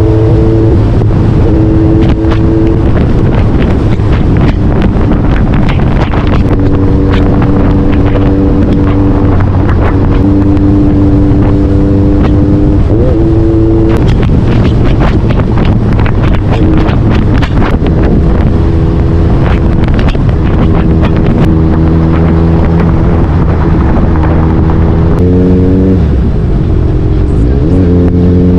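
A motor vehicle's engine running at a steady pitch that shifts up and down in steps every few seconds, with two short rises near the end, under heavy wind buffeting on the microphone.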